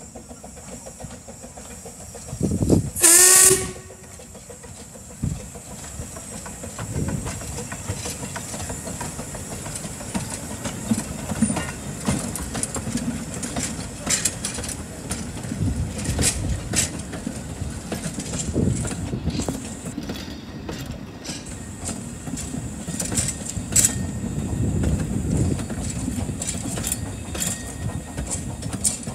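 Narrow-gauge steam locomotive 'Tom Rolt' gives one short, loud whistle about three seconds in, the tone sagging as it shuts off. It then works past steadily with its coaches, a low rumbling beat broken by sharp clanks and rattles from the wheels and couplings.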